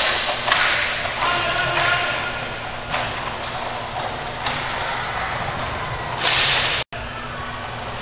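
Inline hockey play in an arena: sharp clacks of sticks striking the puck and floor, with players' voices calling out in the first couple of seconds. About six seconds in, a loud hissing rush, the loudest moment, ends in a brief cut-out of all sound.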